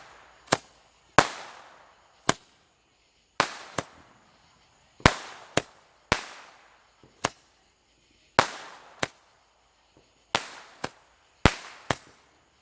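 Fireworks going off: about fifteen sharp bangs at uneven intervals, some in quick pairs, many trailing off with an echoing tail.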